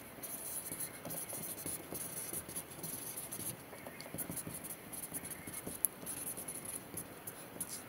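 Felt-tip marker drawing and writing on a whiteboard: a run of short, irregular scratching strokes as the tip is dragged across the surface.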